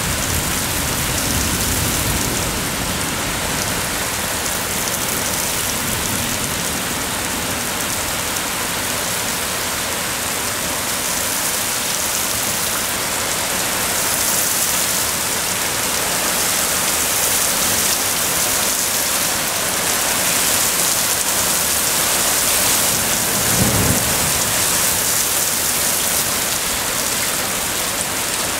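Heavy thunderstorm rain pouring steadily onto pavement and lawns. A low thunder rumble sounds in the first few seconds, and another short low rumble comes late on.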